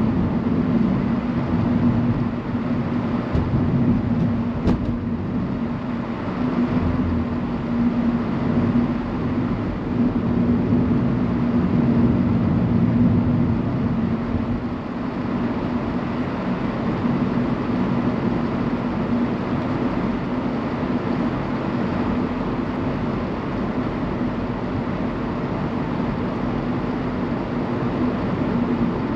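Car driving on a paved road, heard from inside the cabin: steady tyre and engine noise with a low hum. Two faint clicks come about three and five seconds in.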